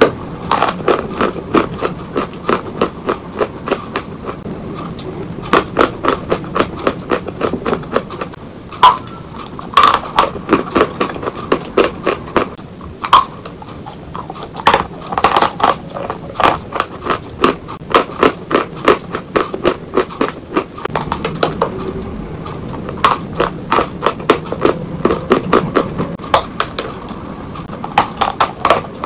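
A lump of Oktavia chalk being bitten and chewed: crisp crunches come several times a second in runs, with short pauses between bites.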